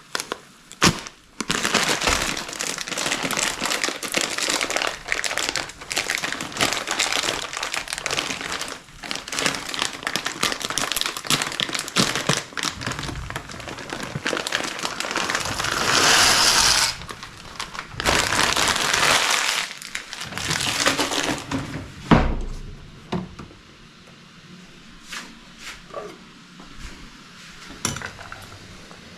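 Dense crinkling and crumpling, with a louder hissing stretch in the middle and a sharp knock after about 22 seconds, then a few quieter clicks.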